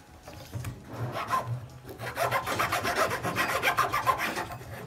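A knife blade scraping along a small wooden stick in quick, repeated short strokes, shaving and flattening the wood; the strokes start about half a second in and grow faster and louder after about two seconds.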